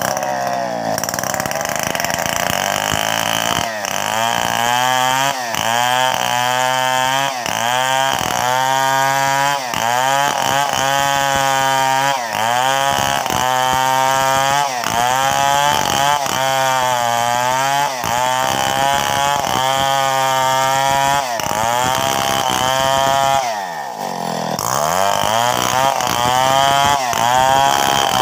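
Two-stroke chainsaw running at high revs while cutting wood. The engine pitch sags and climbs back about every second and a half as the chain bites. A little over three-quarters of the way through it drops briefly towards idle, then revs back up.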